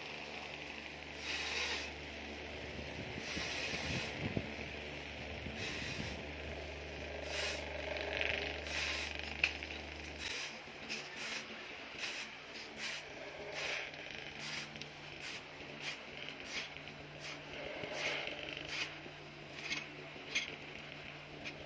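A used rubber tire being dragged through a hand-operated tire-cutting rig, its blade slicing the rubber in repeated short rasping, clicking strokes, about one to two a second and quicker in the second half.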